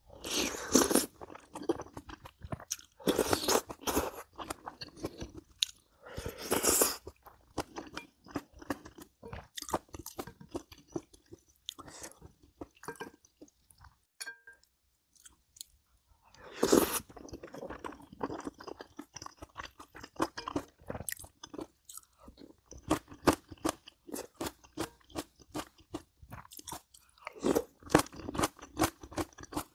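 A person chewing crunchy food close to the microphone: a dense run of crisp crunches and chewing clicks, with several louder bursts about a second long and a brief pause about halfway through.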